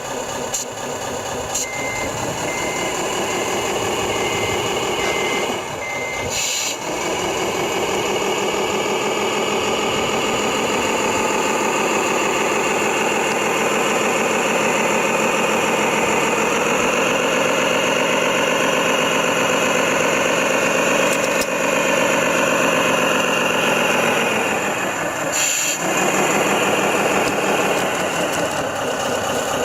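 Radio-controlled model truck with a simulated diesel engine sound running steadily, with a reversing beeper sounding about six times in the first few seconds. The engine note rises for a stretch in the middle and then drops back.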